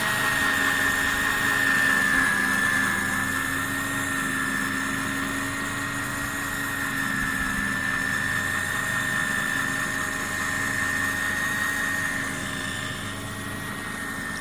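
A motor running steadily with an even, high-pitched whine over a lower hum.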